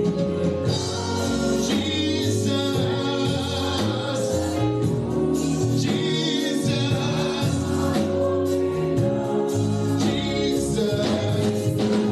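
Gospel music: a choir singing over a band with a steady bass line.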